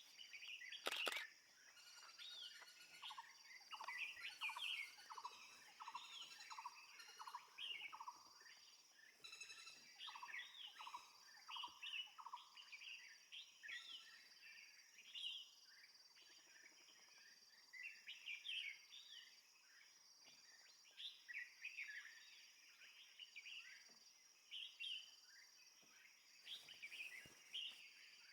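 Faint chirping and calling of small birds, with a run of repeated lower notes about two a second through the first half, over a steady high-pitched hiss. A sharp click comes about a second in.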